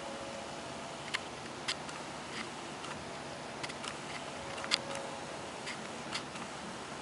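Steady hiss of wet weather falling at a snowy rail platform, with about ten sharp ticks at irregular intervals as drops or pellets strike hard surfaces.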